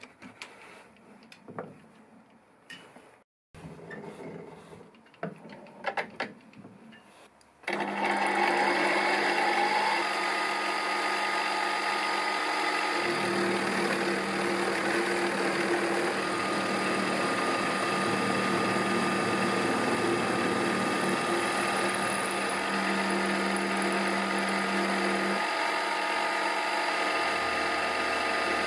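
After a few light clicks and knocks, a milling machine starts about eight seconds in and runs steadily, its end mill cutting the axle slot into a 4 mm steel bicycle dropout plate.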